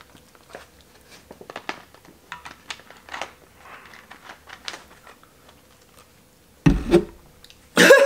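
Faint gulps and small mouth clicks of soda being chugged from a plastic bottle, then two loud short sudden sounds near the end.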